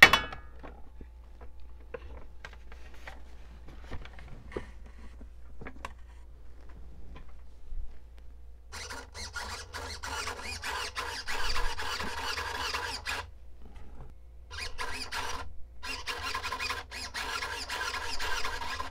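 Futaba S3004 servo driving the elevator through its new control rod, whining in stretches of a few seconds from about halfway through as the transmitter stick is worked. Before that there is a sharp click at the start and a few light clicks.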